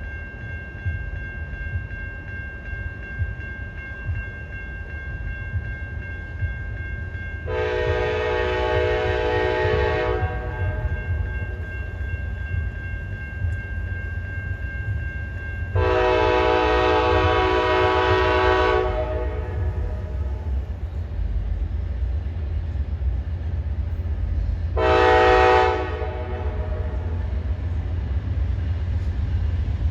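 Amtrak passenger train's multi-chime air horn sounding three blasts, two long and then a short one, the opening of a long-long-short-long grade-crossing signal. Under the blasts the train makes a steady low rumble.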